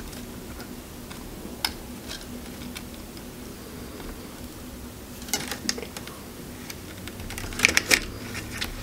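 Light clicks and taps from a soldering iron and copper solder wick being worked on a circuit board's solder joints during desoldering: scattered taps, a short cluster past the middle and the sharpest clicks near the end, over a steady low hum.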